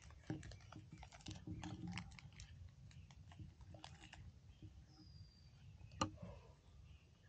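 Faint crisp crackles and clicks from a packaged Beng-Beng chocolate wafer bar being opened and eaten. They are thickest in the first two seconds and thin out after, with one sharper click about six seconds in.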